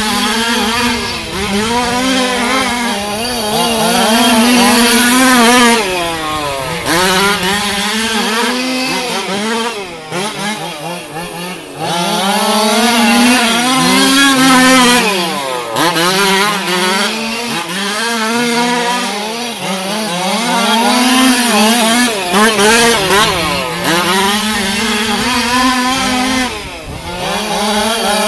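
Small two-stroke petrol engines of large-scale HPI Baja RC cars lapping together, more than one engine heard at once. The pitch climbs as they accelerate down the straights and drops as they lift off for the turns, every few seconds.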